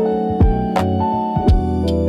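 Slow lo-fi hip-hop music: mellow electric piano chords over a bass line and a laid-back drum beat, with kick drums and a snare hit marking the rhythm.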